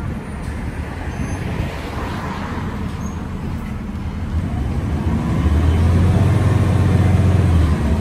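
Bus in motion: steady low engine and road rumble. A deeper engine drone swells up about five and a half seconds in and holds for about two seconds before easing.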